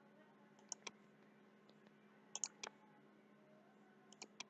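Computer mouse clicking in three quick groups of two or three clicks each, over a faint steady hum.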